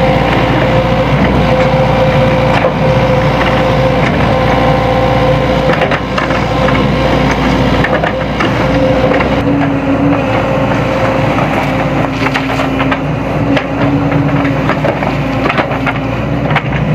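Sany SY75C excavator working gravel: its engine runs steadily with a held whine while gravel crunches and scrapes under the bucket in many sharp clicks. The whine drops to a lower pitch about halfway through.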